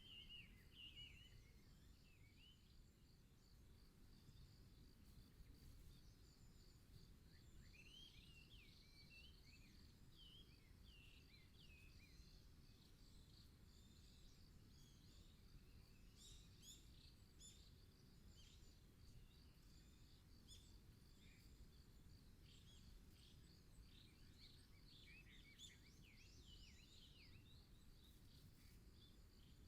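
Faint birdsong: short chirps and twitters in scattered bursts, over a steady, fine, high-pitched pulsing trill and a low background rumble.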